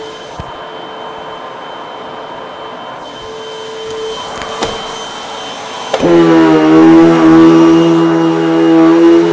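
Eureka Maxima upright vacuum cleaner running with a steady hum and a thin high tone. About six seconds in it turns much louder, with a strong steady multi-tone motor whine.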